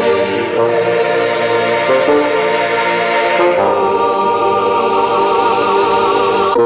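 Background music of sustained choir-like chords, with a wavering high voice held above them from about halfway through.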